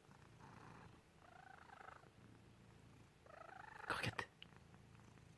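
Sleeping domestic cat snoring, a low buzzing rattle that swells and fades in waves. Just after four seconds in come two sharp clicks, the loudest sounds.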